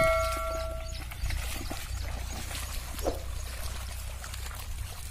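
A bell's ring fading out in the first second, then water and mud sloshing and splashing as a pair of bullocks and a wooden plough wade through a flooded paddy field.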